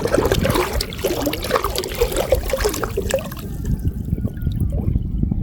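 Water splashing and trickling off a gill net as it is hauled out of flooded field water. It is busiest for about the first three seconds, over a low steady rumble.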